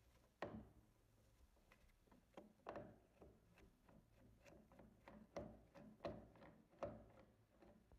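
Screwdriver turning out the rear trigger-guard screw of a Mauser Kar98k rifle: faint, irregular clicks and creaks of the blade working in the steel screw head as the screw comes loose, about ten in all.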